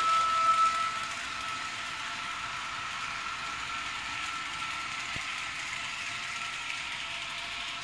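Model KCR KTT train with a digital sound decoder running: a steady hiss with a faint held tone from the decoder's speaker, over the model's gear noise. A louder tone drops away in the first second.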